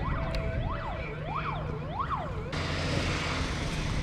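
Emergency vehicle siren in a quick rising-and-falling wail, repeating about every half second over a vehicle engine's rumble. It cuts off abruptly about two and a half seconds in, giving way to a noisier engine rumble.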